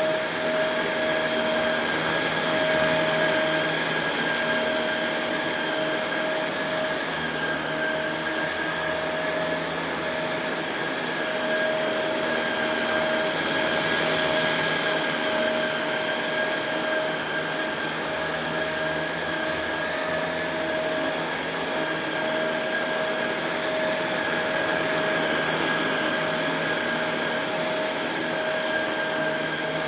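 Shark Rotator Pro Lift-Away NV500 upright vacuum cleaner running steadily while vacuuming carpet: a constant motor whine over a rush of air.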